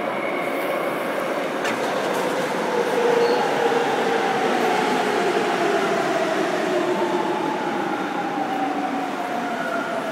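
Subway train pulling into an underground station and running past close by: wheels on the rails with a motor whine that falls slowly in pitch as the train slows. It is loudest about three seconds in.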